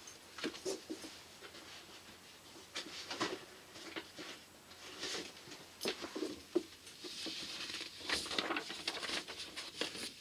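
Faint, scattered knocks, shuffles and rustles of a person moving about and looking through papers, with a longer stretch of rustling near the end.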